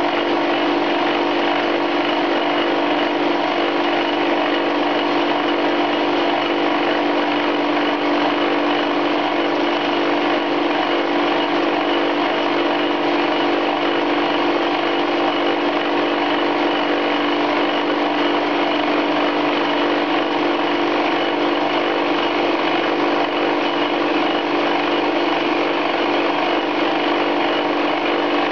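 Homemade two-tipped indexable carbide fly cutter spinning on a lathe spindle at 1400 RPM, milling a full 1 mm deep cut across hard steel: a continuous cutting noise over a steady low note from the running lathe, even throughout.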